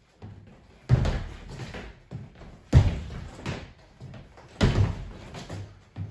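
Two fencers' sneakered feet stamping on a hardwood floor during half-step lunges and recoveries: three loud thuds a little under two seconds apart, each the front foot landing a lunge, with lighter footsteps between.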